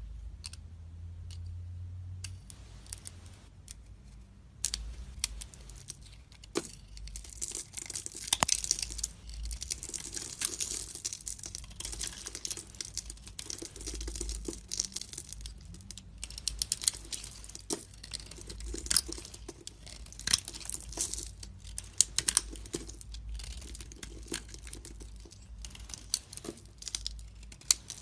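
A knife cutting and carving bars of soap: crisp crackling and crumbling in spells of a few seconds, with sharp clicks and snaps.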